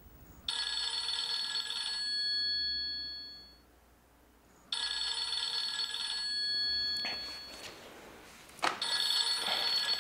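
Mobile phone ringtone ringing three times, each ring a couple of seconds long with a short gap between.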